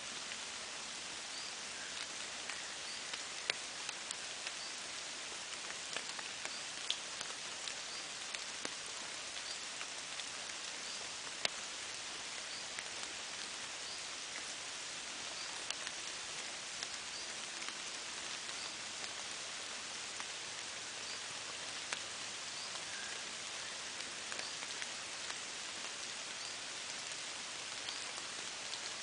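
Steady rain falling, an even hiss with scattered sharp drips landing on surfaces. A faint high chirp repeats about once a second.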